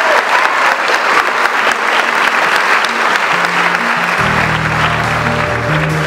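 A crowd applauding, dense steady clapping. A little over three seconds in, music comes in under the clapping, and deep bass notes join about four seconds in.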